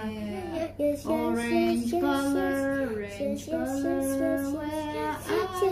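Music with a voice singing a melody in held notes that step up and down.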